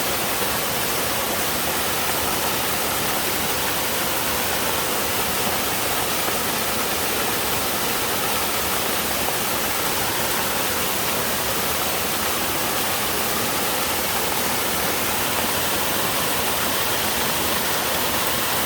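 Mountain-stream waterfall pouring over rocks: a steady, loud rush of falling water that stays even throughout.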